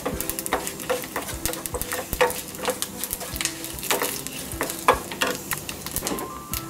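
Whole spices (mustard seeds, urad dal, dried red chillies and cumin) sizzling in hot sesame oil in a kadai for a tempering, with scattered crackles and a wooden spatula stirring and scraping across the pan.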